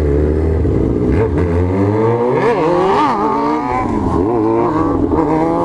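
Yamaha XJ6 motorcycles' 600 cc inline-four engines revving hard under wide throttle, pitch climbing and dropping several times, with a sharp rise and fall about three seconds in.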